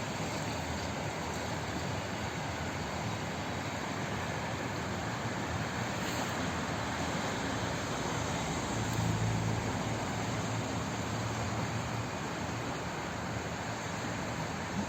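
Water flowing steadily, an even rushing hiss. A low rumble swells briefly a little past the middle and fades again.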